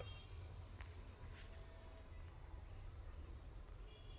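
Chorus of crickets: a steady, high-pitched trill that pulses rapidly, with a low rumble underneath.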